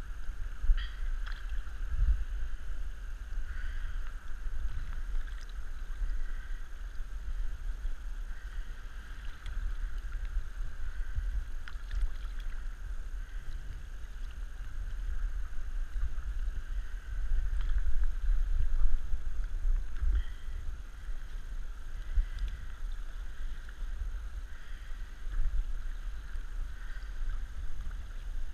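Sea water lapping and sloshing around a head-mounted GoPro in its waterproof housing at the surface. It comes through as a steady, uneven deep rumble with small splashes and ticks.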